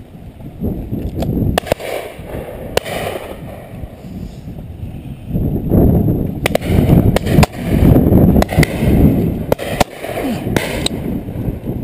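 Shotgun shots: a couple early on, then several in quick succession from about six seconds in, over wind buffeting the microphone.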